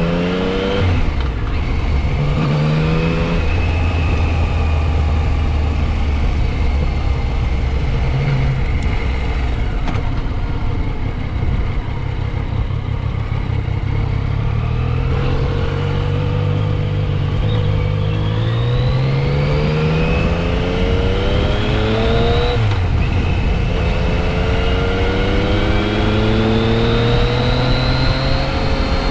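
Yamaha FJ-09 Tracer's 847 cc three-cylinder engine on the move, its pitch climbing steadily under acceleration and dropping sharply at gear changes about a second in, about three seconds in and again past the middle, with a steadier cruising stretch in between. Wind rushes over the helmet-mounted microphone.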